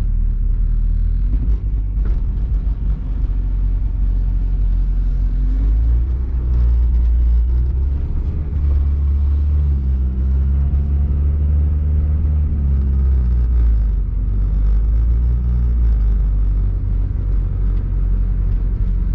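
Steady low rumble of a vehicle driving slowly, heard from inside the cab, with the engine note rising and then falling again around the middle.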